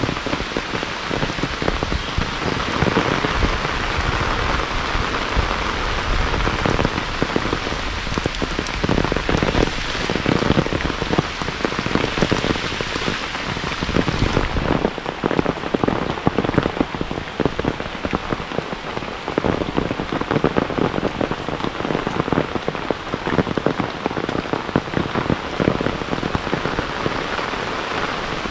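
Heavy rain falling steadily, a dense patter of close raindrops striking all around without a break.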